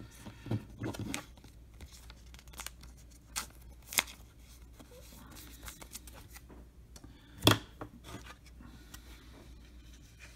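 Trading cards and a thin plastic wrapper strip being handled: soft rustling and sliding, with a few sharp clicks and snaps, the loudest about four and seven and a half seconds in.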